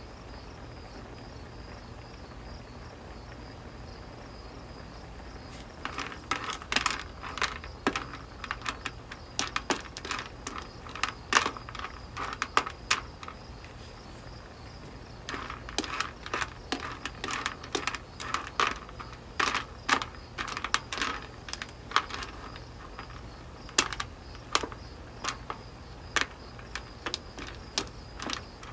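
Babylon snail shells clattering against a nonstick wok and each other as a spatula stirs them: quick irregular clicks start about six seconds in, stop briefly around the middle, then resume. A steady thin high whine and a low hum run underneath.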